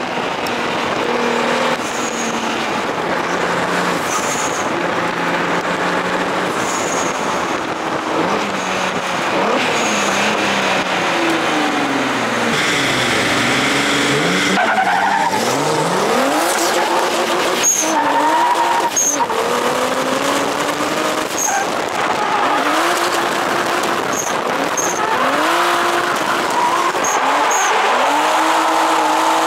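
Twin-turbo 3.8 V6 of a G35 coupe drift car, a Genesis Coupe engine swap, revving up and down hard while drifting, with tyres screeching. Around the middle the engine note sinks lower before revving up again.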